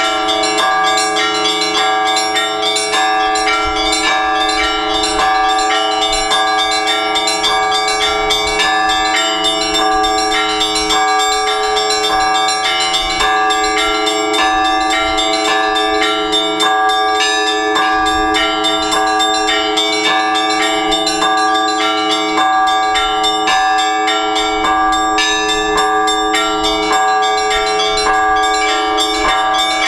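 Orthodox church bells rung together in a continuous peal: many bells of different pitches struck in quick succession over the steady ringing of the larger bells, without a break.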